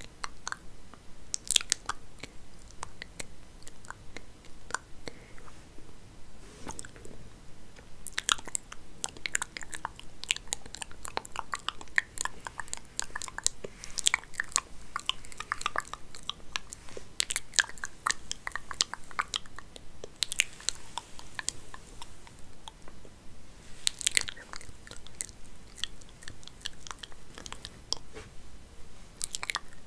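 Hair being played with and combed right at the microphone: a dense, continuous crackling and scratching with sharp clicks throughout.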